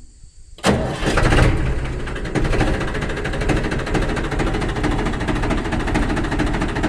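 A small engine on a DIY model tractor starts up about half a second in and then runs steadily with a fast, even chatter.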